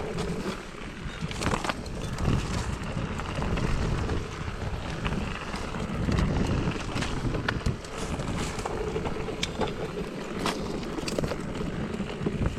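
Wind buffeting the microphone over the rumble of a mountain bike riding on a rough trail, with frequent short clicks and rattles from the bike and its tyres.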